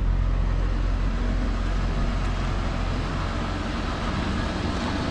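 Ford Thunderbird Super Coupe's supercharged 3.8-litre V6 idling steadily, a low even hum.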